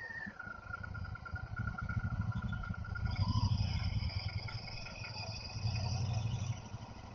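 Royal Enfield Thunderbird 350 Twinspark's single-cylinder engine running at low road speed, heard from the rider's seat. Its beat grows louder twice, a few seconds apart.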